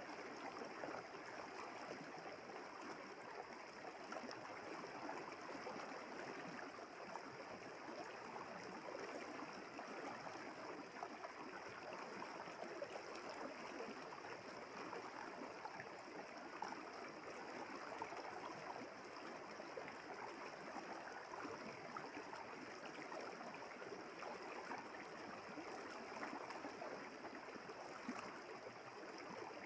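River water flowing steadily over stones in a continuous babbling rush. A faint, steady high-pitched hum runs underneath.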